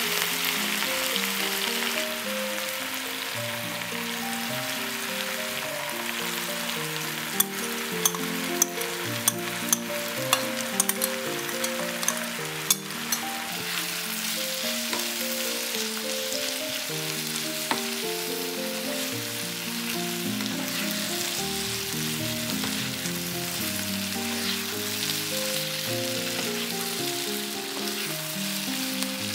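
Beef, onion and bell peppers sizzling as they fry in sauce in a nonstick frying pan, stirred with a spatula, with a run of about eight sharp taps of the spatula against the pan a quarter to nearly halfway through. A soft background tune of plain melodic notes plays underneath.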